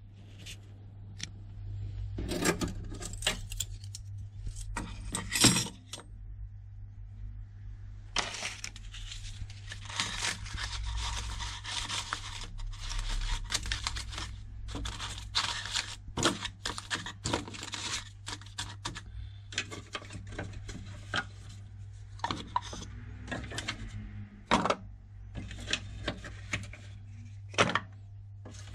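Teaspoons, coffee capsules and stick-sugar packets being set into a small wooden box: many short clinks, knocks and rattles, with a stretch of rustling and scraping, over a steady low hum.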